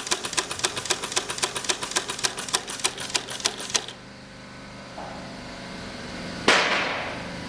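Tippmann PNF air-powered sewing machine running, its needle cycling in a fast, even train of clacks, about six or seven a second, that stops about four seconds in. About six and a half seconds in there is a sudden loud burst of hiss that fades quickly.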